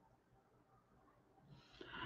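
Near silence: room tone, with a short soft hiss starting near the end.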